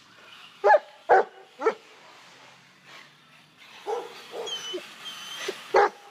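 A dog barking: three sharp barks about a second in, a few softer barks around four seconds, and another loud bark near the end.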